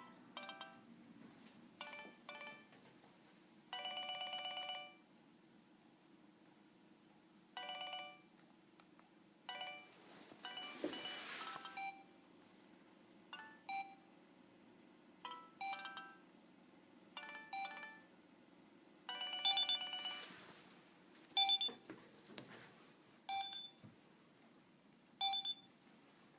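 A Nokia 2610 mobile phone playing short snippets of ringtone melodies through its small built-in speaker. The snippets start and stop one after another with short pauses between them, most lasting under a second and a few lasting a second or more, with brief rustling handling noise about halfway through and again near the end.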